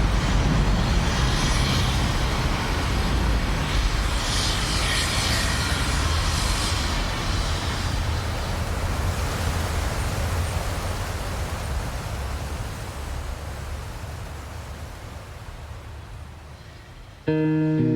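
Road traffic on a main road: cars and buses passing with a steady low rumble and tyre hiss, fading out over the last several seconds. Acoustic guitar music starts suddenly near the end.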